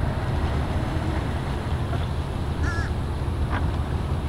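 A bird gives one short, wavering caw about two-thirds of the way through, with a fainter call just after. Under it runs a steady low rumble.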